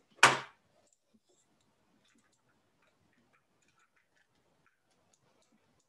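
A brief voice sound just after the start, then near silence with faint scattered ticks and clicks.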